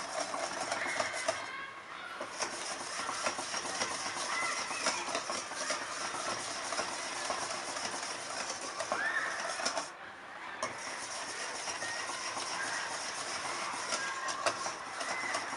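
Wire whisk beating a matcha custard mixture in a stainless steel bowl, the wires scraping and clicking against the metal. The beating breaks off briefly twice, about two seconds in and about ten seconds in.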